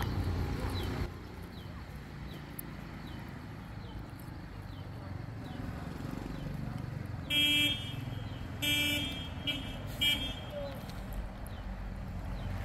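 A vehicle horn honks four times in quick succession about halfway through: two short blasts, then two briefer toots, over a steady low rumble. Faint, short, high falling chirps repeat about twice a second during the first few seconds.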